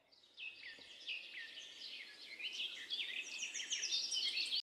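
A chorus of small birds chirping: many short falling chirps overlap and grow busier toward the end, then cut off abruptly.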